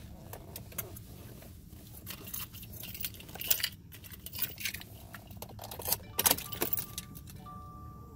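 Car keys jangling and clicking on their ring, then from about six and a half seconds in the car's electronic warning chime sounding in long, evenly repeated beeps.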